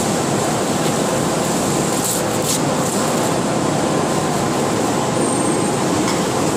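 Steady loud background noise of a large commercial kitchen, its ventilation and machinery running, with a short rustle about two seconds in as the chef handles the pastry and plastic sheet.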